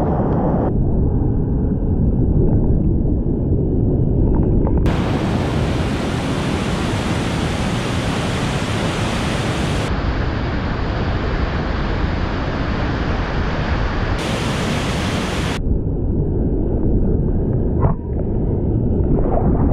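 Loud, steady rush of a steep whitewater rapid and drop, heard close up at the water's edge and from a kayak in the current. Its brightness changes abruptly several times, and there is a short knock near the end.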